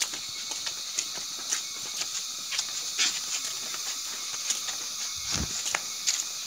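Steady high-pitched insect chorus of crickets or cicadas, with scattered clicks and one low thump about five seconds in.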